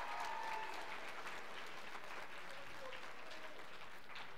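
Audience applauding steadily in an auditorium, with a brief cheer in the first second.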